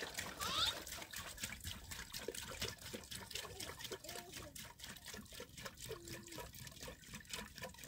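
Faint trickling water with many small irregular splashes and drips.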